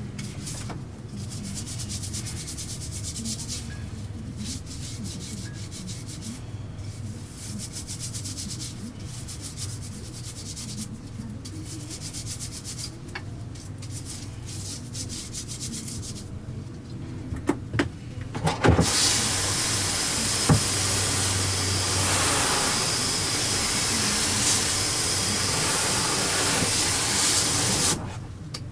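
Repeated scraping strokes in short runs. About two-thirds of the way in, a few sharp clicks, then a louder steady rushing hiss that stops shortly before the end.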